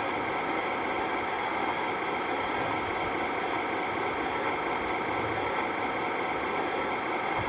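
Steady hum and hiss of background noise, with no change in level.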